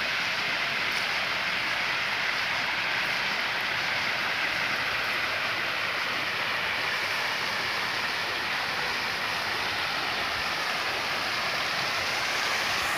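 Steady rush of falling water from an artificial rock waterfall feeding a pond.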